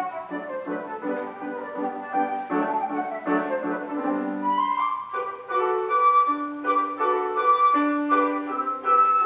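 Classical concerto played live by a solo wind instrument with piano accompaniment. A busy passage runs for the first five seconds; then the soloist holds long high notes over sustained piano chords.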